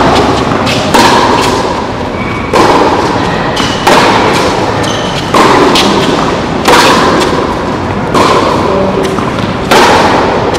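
Tennis ball struck back and forth in a baseline rally, a sharp racket hit about every second and a half, each one ringing on in the echo of the roofed hall.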